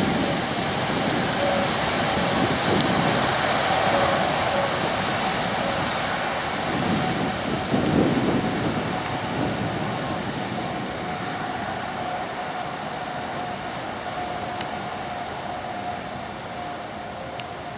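Twin-engine widebody jet airliner's turbofans at takeoff power: a deep roar with a steady whine through it, loudest about halfway through, then slowly fading as the jet rolls away down the wet runway.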